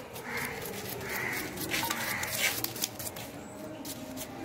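A knife slicing small red onions very fast: a quick, irregular run of sharp cuts. A crow caws a few times in the background.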